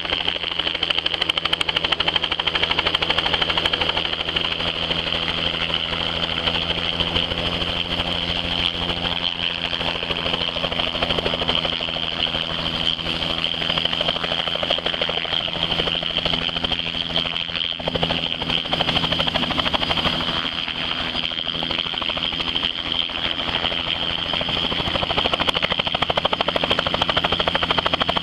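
Two-bladed turbine helicopter hovering and manoeuvring close by: a fast, steady chop of the rotor blades over a high, steady turbine whine, a little louder near the end as it comes in to land.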